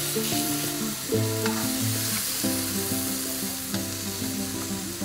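A large slice of raw beef sizzling steadily on a hot tabletop Korean barbecue grill plate, freshly laid down with tongs, with background music playing.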